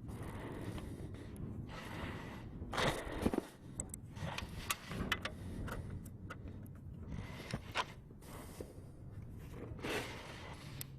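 Scattered clicks, taps and short scrapes of hand work, likely fire-stop sealant being worked into furnace seams by hand, over a faint steady low hum.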